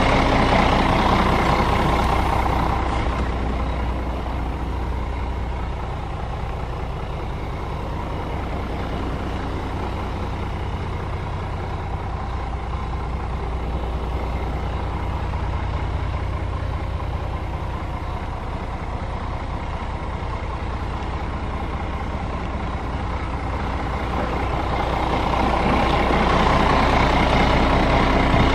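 Scania R 410's 13-litre straight-six diesel idling steadily, louder at the start and near the end and quieter in the middle.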